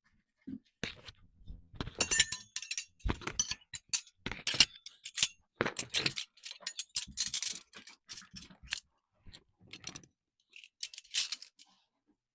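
Dishes and cutlery clinking and clattering as a dishwasher is unloaded, in a quick irregular run of sharp clinks, some of them ringing briefly.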